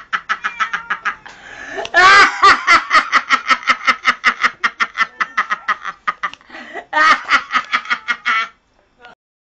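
A man laughing in a long, rapid, high-pitched cackle of "ha" bursts, about six a second, in several runs broken by short breaths; it stops shortly before the end.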